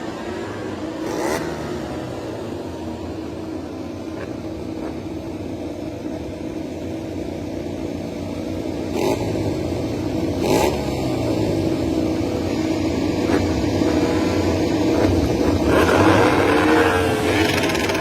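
MotoGP racing motorcycle engine running close by, its revs rising and falling, with a few sharp clicks; it grows louder in the second half.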